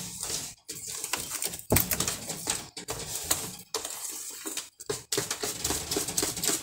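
Cake batter being beaten by hand in a plastic bowl: rapid strokes of the utensil clattering and scraping against the bowl, broken by short pauses about once a second.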